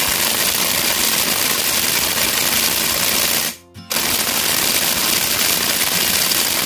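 Milwaukee cordless impact wrench hammering as it tightens a large nut, in two long bursts with a short break a little over three and a half seconds in.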